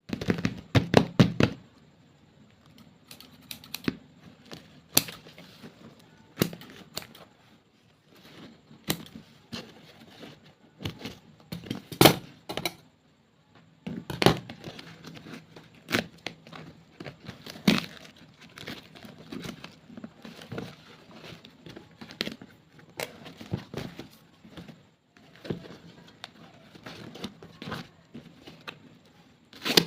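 Plastic wrappers on soft clay packs being torn open and crinkled, giving irregular sharp crackles and clicks. A dense cluster comes in the first second and a half, and the loudest snap comes about twelve seconds in.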